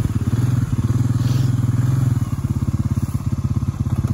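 Honda ATV engine running at low speed as the four-wheeler creeps forward, a steady chugging. About two seconds in it eases back to a softer, more distinct putter near idle.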